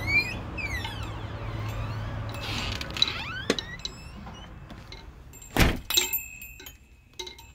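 A steady low rumble with high gliding tones, fading after about three seconds. A loud thump comes about five and a half seconds in, followed by a few clicks and a faint high ringing tone.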